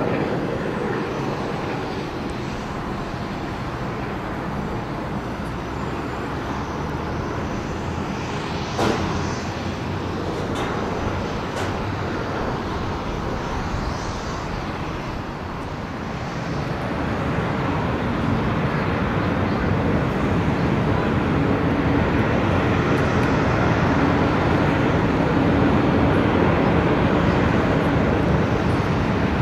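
Antonov An-70's Progress D-27 propfan engines, with contra-rotating eight- and six-bladed propellers, running steadily on the ground. The sound grows louder about halfway through.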